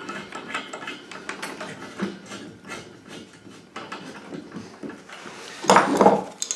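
Small irregular metal clicks and taps as a chrome radiator valve's nut is turned by hand onto the threaded inlet of a chrome towel radiator, with one louder scrape about six seconds in.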